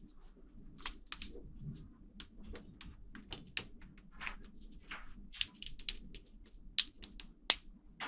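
Small magnetic balls clicking as they snap together around a clear rod, irregular sharp clicks a few times a second, with two louder snaps near the end.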